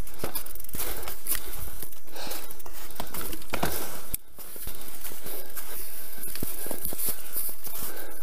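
Footsteps crunching in snow while a mountain bike is pushed through fallen conifer branches, the branches rustling and crackling with many small clicks throughout, briefly dropping away about four seconds in.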